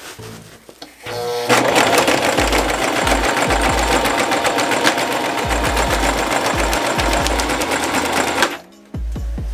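Electric sewing machine stitching through layers of sailcloth and strap webbing in one steady fast run. It starts about a second in and stops abruptly near the end.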